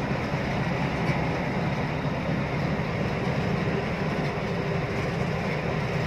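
Steady drone of a diesel truck's engine and tyre noise, heard from inside the cab while driving along a highway.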